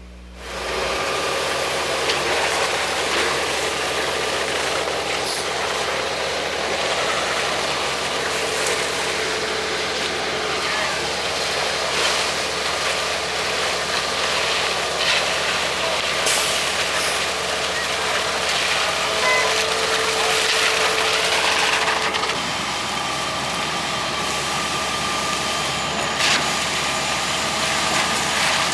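A concrete truck's diesel engine running steadily at a slab pour, with a few brief clicks and knocks over it.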